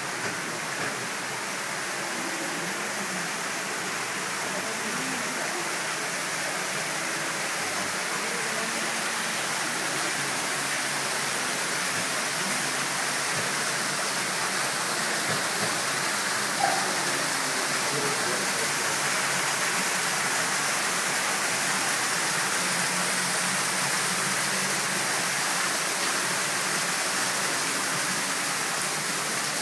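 Steady rush of water, an underground stream or waterfall in a cave, growing a little louder over the first ten seconds or so and then holding.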